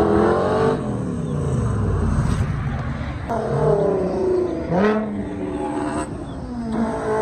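Car engines revving hard as cars accelerate away from the roadside. The engine note drops and then climbs sharply several times, with the loudest rise about five seconds in, around the moment a Nissan GT-R passes.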